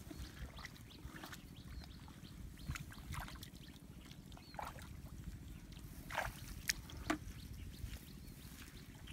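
Feet squelching and splashing through shallow water and mud, a string of separate steps with the loudest few near the end, over a steady low rumble.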